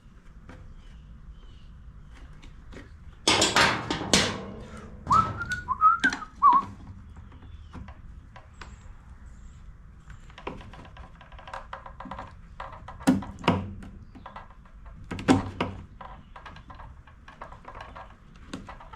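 Hands and tools working a new fuel line into the rubber grommet of a backpack blower's fuel tank: scattered thunks and knocks, with a short wavering high-pitched whistle-like tone about five seconds in.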